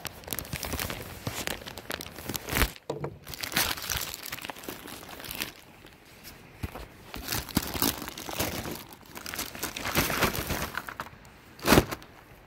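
Clear plastic tarp packaging crinkling and tearing as a folding knife slits it open and hands pull at it, with a single sharp knock near the end.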